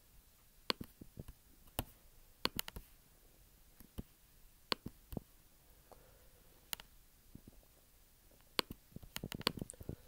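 Computer mouse clicking: single sharp clicks at irregular intervals, a second or so apart, bunched more closely near the end.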